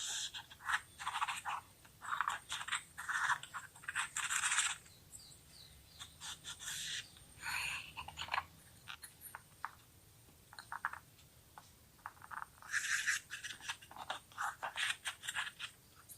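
Kinetic sand being cut with a knife: a run of soft crunches and short scraping strokes, with quick ticks between them, thinning out for a few seconds in the middle.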